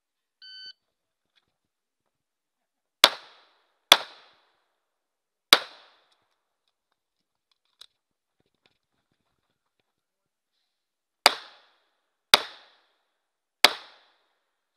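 An electronic shot-timer start beep, then six 9mm pistol shots. Three come from about three seconds in, the first two close together. After a pause of several seconds three more follow, about a second apart, near the end.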